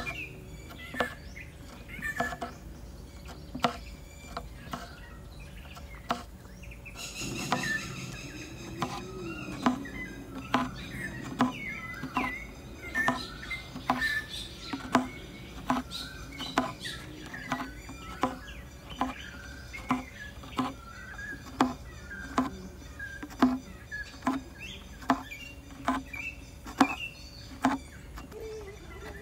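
Embroidery needle piercing thin canvas stretched drum-tight in a wooden hoop, with the thread drawn through after each stitch: a regular series of sharp taps, each often followed by a short squeaky rasp. The stitches come slowly at first, then speed up to about one to two a second about seven seconds in.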